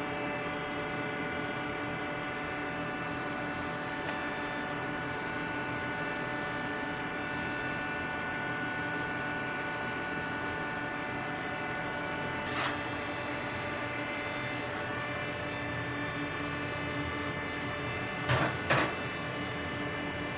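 Steady machine hum made of many even, unchanging tones, like a running motor or fan. There is one short knock a little past halfway and two quick knocks near the end.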